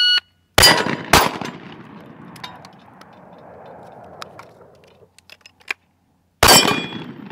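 Electronic shot-timer beep, then a side-by-side hammered 12-gauge coach gun fired twice about half a second apart, small clicks as the action is opened and reloaded by hand, and a third shot about five seconds later.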